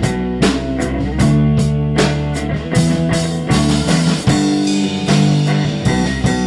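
Rock song: electric guitar with held notes over a drum kit keeping a steady beat.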